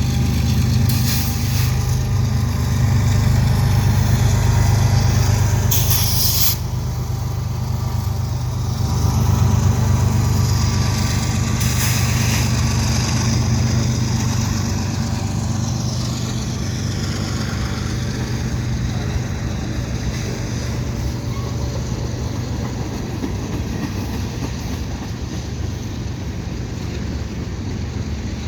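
CN freight train passing, its GE ES44DC diesel locomotives running with a steady low engine drone that is loudest in the first half and then eases off as the train rolls on. A few brief high-pitched flares come through along the way.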